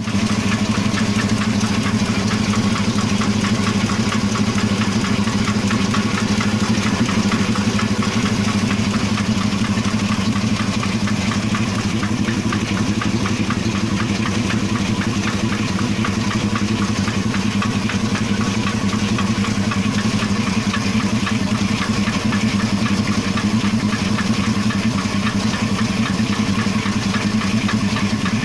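Car engine idling steadily with a fast, regular knock, the engine knock being hunted for.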